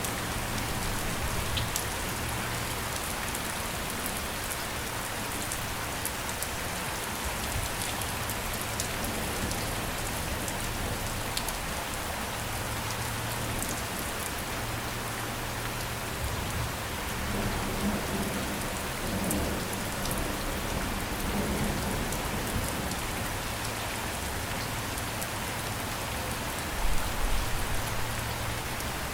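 Steady rain falling on a surface, a dense even hiss with individual drops ticking, under a low rumble.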